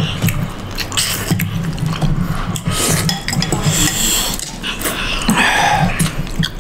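Close-miked eating of thukpa noodle soup: noodles slurped and chewed, with spoons and a fork clinking against porcelain bowls in quick, irregular clicks.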